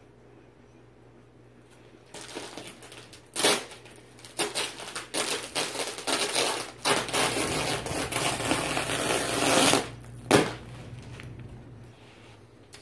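White plastic wrapping torn and pulled off a rolled, vacuum-packed mattress: crinkling and ripping plastic starting about two seconds in, with sharp tears near three and a half and ten seconds in and a long tear in between.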